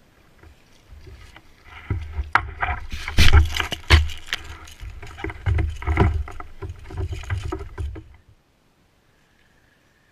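Knocks and clatter on a fishing kayak, with a low rumble, loudest a few seconds in, cutting off suddenly about eight seconds in.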